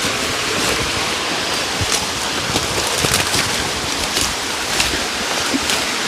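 Small waterfall, about six metres high, rushing steadily with falling water. A few faint light clicks sound over it.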